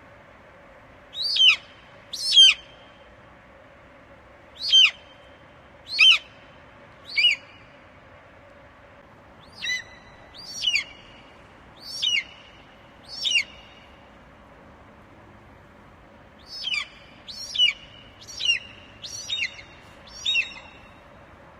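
Eagle calling: a series of short, high, sharp calls, each sliding steeply down in pitch, given in three bouts of four or five calls with pauses between.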